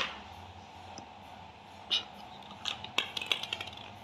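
Hollow plastic balls and a plastic toy truck knocking together as they are handled: one sharp click at the start, another about two seconds in, then a quick run of light clicks and rattles lasting about a second.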